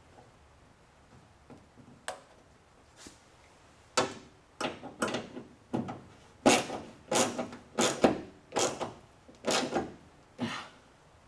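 A hand ratchet wrench tightening a gas tank mounting bolt, with about ten quick clattering strokes from about four seconds in as the bolt is drawn up tight against the tank.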